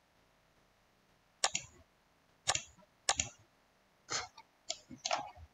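Six short, sharp computer mouse clicks at irregular spacing, starting about a second and a half in.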